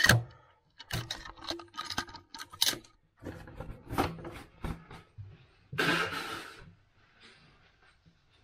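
Clicks and rustling as a sheet of paper towel is pulled off the roll and torn, then a nose blown into the paper for under a second, a little past the middle.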